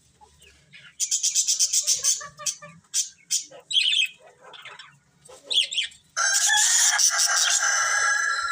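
Budgerigars chirping and chattering: a fast run of repeated chirps about a second in, scattered calls, then loud continuous chattering from about six seconds in.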